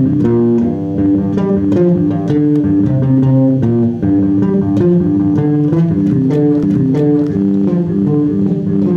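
Bass guitar played fingerstyle without a pick: a quick, continuous run of plucked notes.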